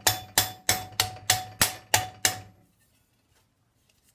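A mallet striking 22-gauge annealed stainless steel sheet against a steel forging stake: even blows about three a second, each with a short metallic ring, hammering the sheet's edge over. The blows stop about two and a half seconds in.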